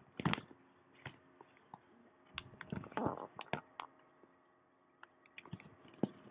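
Handling noise from a recording device being swung and carried around: scattered soft knocks, clicks and rustles, with a louder muffled rustle about three seconds in.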